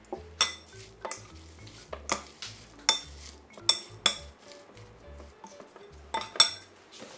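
Metal spoon stirring a wet wild-chive and soy sauce dressing in a glass bowl, clinking sharply against the glass about ten times, each clink ringing briefly.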